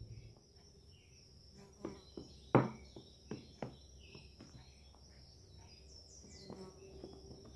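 Metal spoon stirring thick slime of glue and shaving foam in a plastic cup: soft scrapes and a few light clicks and taps of the spoon against the cup, the loudest about two and a half seconds in.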